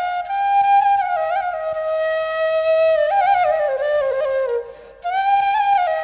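Background music: a solo flute playing a slow melody of long held notes with quick ornamental turns, breaking off briefly about five seconds in before the next phrase starts.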